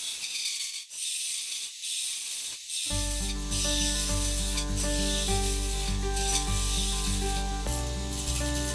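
Round abrasive tool scraping inside the spinning crepe myrtle goblet cup on the lathe, a steady high hiss broken by short pauses in the first few seconds. Background music comes in about three seconds in and plays over the hiss.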